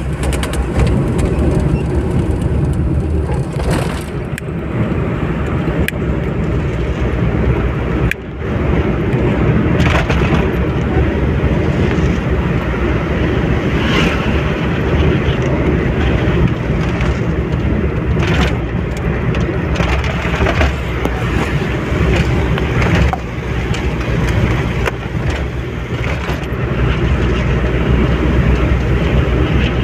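Steady engine and tyre noise inside a car cruising on a highway, with a few brief knocks scattered through it.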